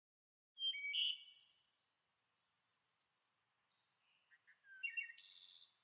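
Birds chirping in two short spells of high, quick calls and trills, one about half a second in and another near the end, with faint chirps between.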